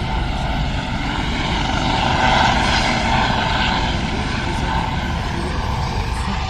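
Engines of a Coast Guard aircraft coming in to land: a steady, loud drone that swells slightly about two seconds in.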